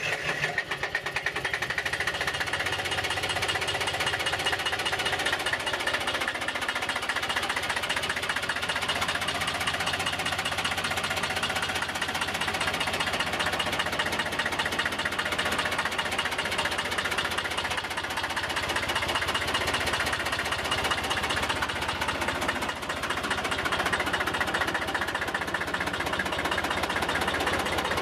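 Porsche-Diesel Junior tractor's single-cylinder air-cooled diesel engine running steadily, with a rapid, even knocking beat.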